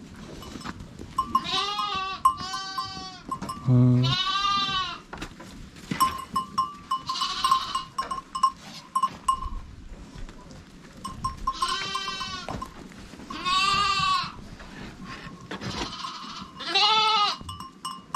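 Sheep and lambs bleating in a pen: several separate calls, some high and some lower, each under a second long and a few seconds apart. A small bell clinks faintly between them.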